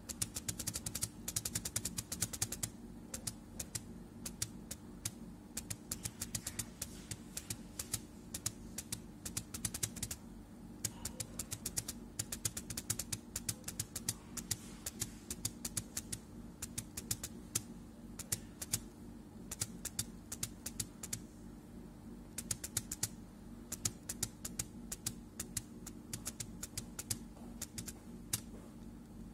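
Computer keyboard being typed on in quick bursts of keystrokes with short pauses, over a steady low hum.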